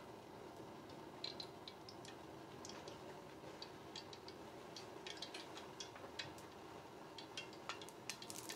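Cooking oil heating in an iron wok: faint, irregular crackling ticks that start about a second in and grow more frequent as the oil gets hot, over a faint steady hum.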